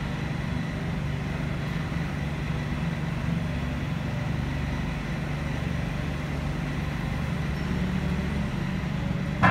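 Cat 2P5000 forklift's engine idling steadily.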